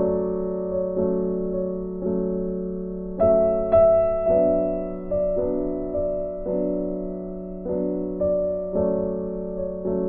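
Background piano music: slow, gentle notes struck one after another, each fading before the next.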